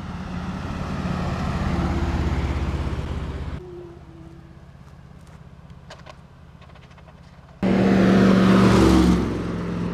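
Road vehicles passing close by: engine and tyre noise with a low hum swells for a few seconds and cuts off abruptly. After a quieter stretch with a few clicks, another loud passing vehicle comes in suddenly near the end.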